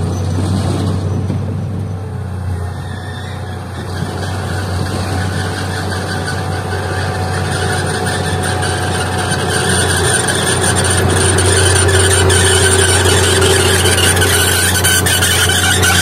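Komatsu D31P crawler bulldozer running steadily while pushing a blade of soil, with a squeal from its steel tracks. It gets louder in the second half as the machine comes closer.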